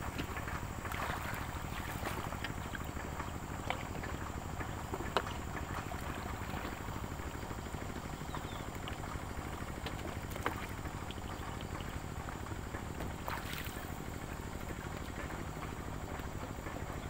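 Steady river water noise with a few faint sharp clicks or knocks.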